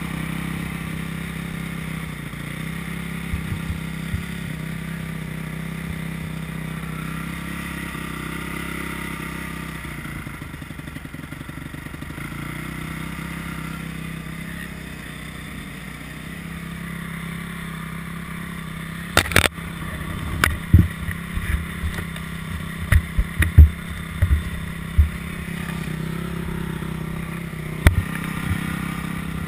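Honda motocross bike engine idling steadily under the rider. About two-thirds of the way through there is a run of sharp knocks and clacks, with one more near the end.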